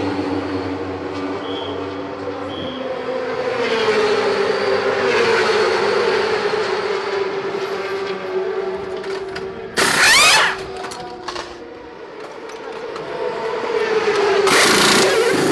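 Racing motorcycle engine drone in a pit lane, with two short, loud bursts of a pneumatic wheel gun during a wheel change: one about ten seconds in, a second near the end.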